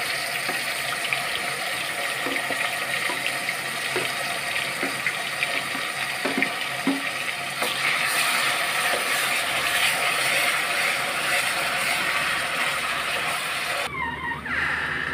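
Onion paste sizzling and crackling as it fries in hot oil in an aluminium pressure-cooker pan, stirred with a wooden spatula. The sizzle drops away abruptly near the end.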